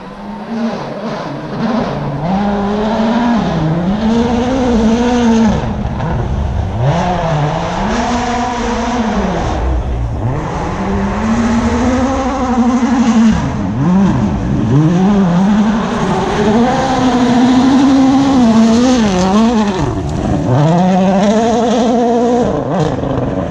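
Rally car engine revving hard at racing pace, its pitch climbing through each gear and dropping sharply at the shifts and under braking, over and over.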